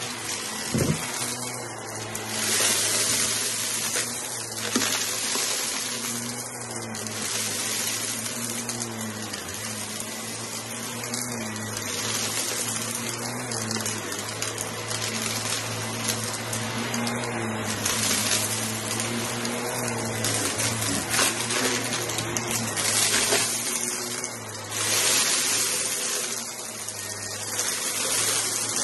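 Corded upright vacuum cleaner running steadily on shag rugs, its motor humming under a rush of suction that swells and eases with each back-and-forth pass, about every two to three seconds, with crunching as it picks up crumbs and debris from the pile.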